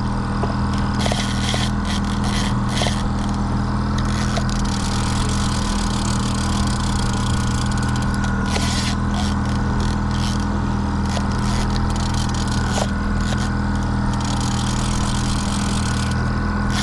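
Boat engine running steadily at trolling speed, a constant low hum, with stretches of hiss coming and going over it.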